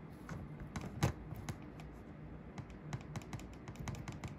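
Irregular light clicks and taps from a small 0-4-0 model steam locomotive chassis being handled on the track with power on, one louder click about a second in and quicker clicking in the second half. The locomotive is not running properly.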